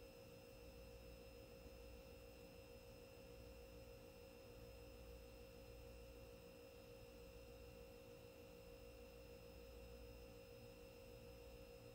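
Near silence: room tone with a faint, steady tone held unchanged throughout.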